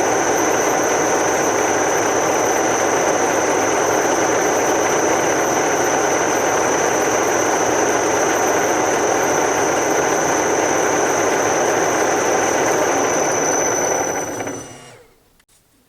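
Milling machine running steadily with a constant high-pitched whine over its motor and drive noise, switched off about 14 seconds in and winding down quickly to quiet.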